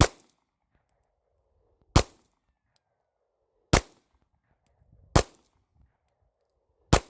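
Smith & Wesson M&P9 9mm pistol fired five times in slow, aimed shots about one and a half to two seconds apart, each a sharp report with a short tail.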